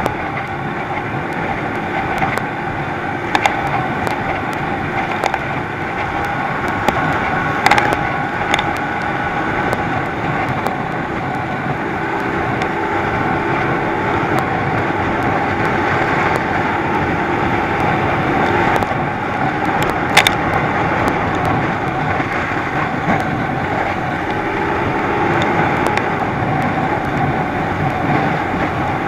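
Thundercat inflatable racing boat's outboard engine running steadily at speed, under the rush of water and spray along the hull, with a few sharp knocks.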